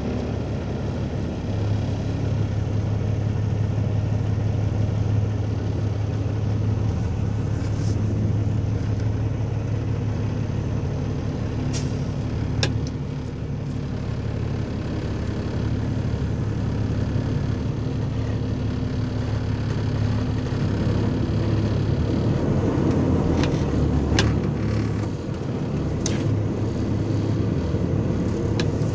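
Kenworth T680 semi-truck engine running steadily under way at low speed, a continuous low drone. A few sharp clicks stand out above it, about a third of the way in and twice more near the end.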